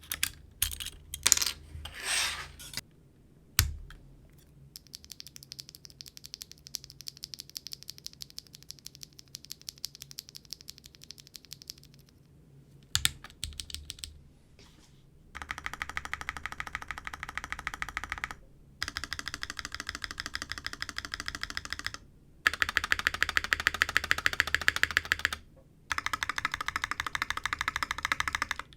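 Lubed Owlab Tungsten linear mechanical keyboard switches on an aluminium-plate board with GMK keycaps: a few separate clacks, then a single switch pressed rapidly over and over in a fast even train of light clicks. About fifteen seconds in, the larger stabilized keys on Durock v2 stabilizers take over, pressed rapidly in four louder runs with short pauses between them.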